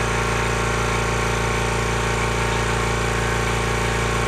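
Kobalt 26-gallon electric air compressor running steadily under load, its pump working against tank pressure of about 135 psi as it nears its 150 psi cut-off.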